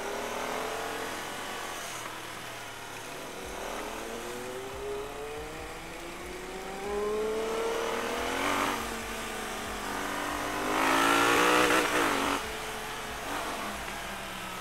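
Kawasaki Z900's inline-four engine accelerating through the gears, its pitch climbing and breaking at each upshift several times over. It is loudest and harshest under hard throttle near the end.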